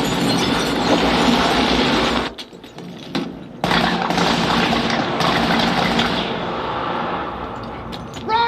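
Action-film soundtrack of dense gunfire and crashing played through Audioengine HD6 bookshelf speakers. It drops away about two and a half seconds in and comes back suddenly about a second later. Near the end there is a short pitched cry that slides up and down.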